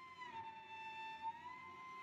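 Solo cello playing one soft, high sustained bowed note that slides down a little near the start and glides back up about halfway through.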